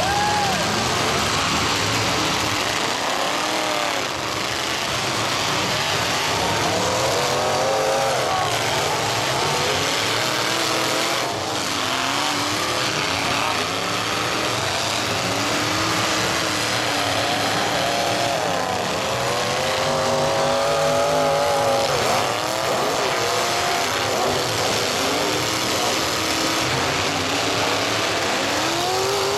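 Several demolition derby cars' engines revving hard and dropping back, over and over, their pitch rising and falling, in a constant loud din of engines.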